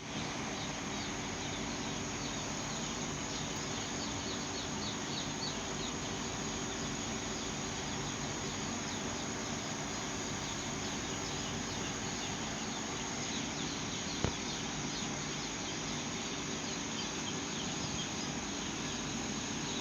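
A flock of chickens in a poultry house, many birds calling at once in a steady din of overlapping short high cheeps, over a low steady hum. A single sharp knock about fourteen seconds in.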